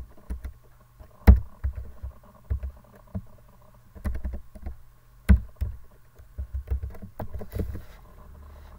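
Typing on a computer keyboard: irregular keystroke clicks with heavier knocks, two much louder strokes about a second in and about five seconds in, over a faint steady low hum.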